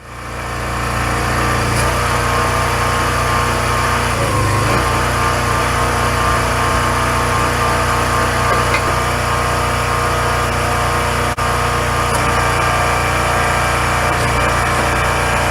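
Honda GX390 single-cylinder petrol engine of a homemade hydraulic log splitter running steadily, with a momentary break about eleven seconds in.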